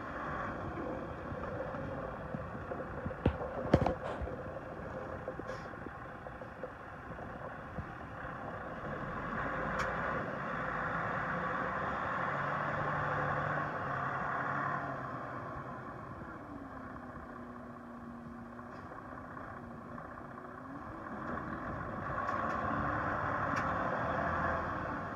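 A Freightliner Cascadia 113 day-cab tractor's diesel engine running as the truck drives slowly around a gravel lot. It grows louder and fades as the truck comes nearer and moves away, with a few sharp clicks about three to four seconds in.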